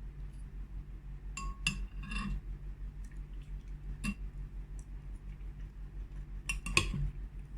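Eating utensils clinking against a soup bowl a few times: a couple of knocks about a second and a half in, one around four seconds, and a small cluster near the end. A steady low hum runs underneath.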